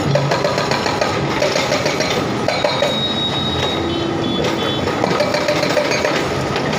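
Excavator-mounted hydraulic breaker hammering its chisel into a concrete road slab: a rapid, steady clatter of blows over the machine's running engine.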